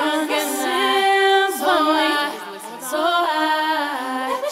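Background music: a song with a prominent singing voice and little accompaniment under it.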